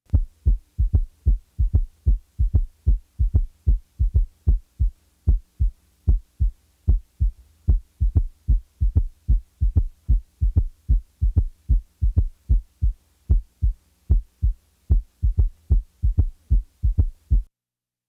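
Heart sounds as heard through a stethoscope: the first and second heart sounds, each followed by a low-pitched third heart sound (S3, a ventricular gallop) in early diastole, giving three low thumps per cardiac cycle. On some cycles the third sound is left out, so the gallop comes and goes. The sound stops shortly before the end.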